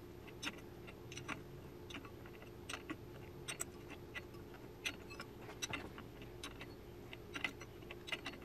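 Faint, irregular metallic clicks and ticks of a wrench and steel parts as the clutch hub nut is worked off a Norton Commando's clutch, over a low steady hum.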